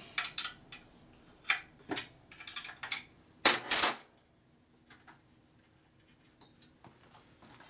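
Metal parts and tools clinking and knocking as they are handled, a few separate knocks and then a louder metal clatter about three and a half seconds in.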